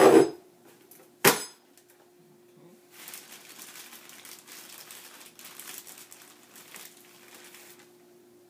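A loud plastic clack from a Vidalia Chop Wizard vegetable chopper as its lid is pressed down, then a second sharp clack about a second later. From about three seconds in, a plastic potato bag rustles and crinkles for several seconds as potatoes are pulled out of it.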